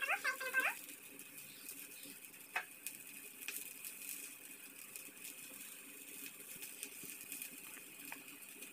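Faint sizzling of potato-cheese patties frying on a flat griddle while oil is brushed on, with a few light ticks. A brief pitched, voice-like sound at the very start.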